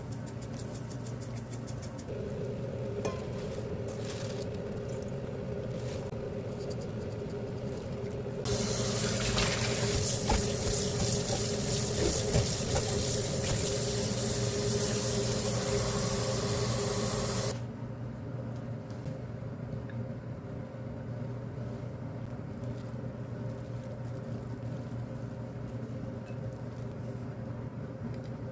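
Kitchen tap water running into a sink or pot for about nine seconds, starting about eight seconds in and cutting off abruptly, over a steady low hum.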